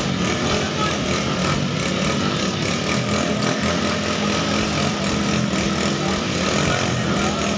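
Small motor scooter engines running steadily at low revs as the bikes creep forward at walking pace.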